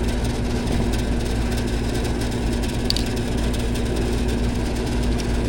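Powered-up package air-conditioning unit running with a steady electrical hum over a low rumble, and a faint tick about three seconds in.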